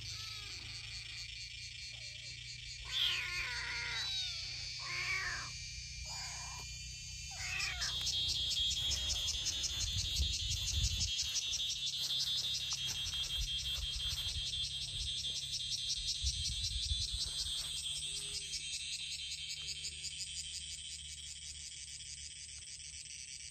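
Tabby kittens meowing several times in short high calls during the first eight seconds, over a steady chorus of chirping insects that swells louder about eight seconds in. Two brief low rumbles come in the middle.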